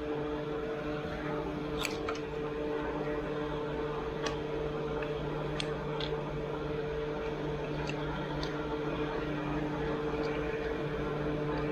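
Steady mechanical hum from a running machine, with scattered light clicks and taps from hands working on wiring connectors.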